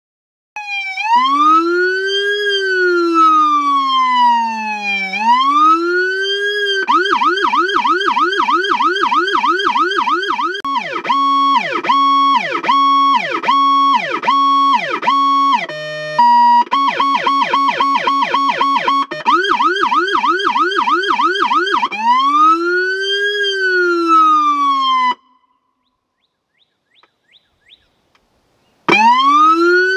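Powercall "Jack Hammer" low-frequency electronic siren add-on cycling through its tones. It plays a slow rising and falling wail, then a fast yelp, then a rapid stepping warble with a brief break about 16 seconds in, then the yelp and the wail again. It cuts off suddenly about 25 seconds in, and after a few seconds of faint clicks the wail starts again near the end.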